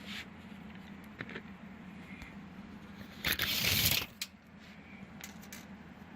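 A steel tape measure being taken out and its blade pulled out: a few light clicks and one brief rasping rustle about three seconds in, over a faint steady hum.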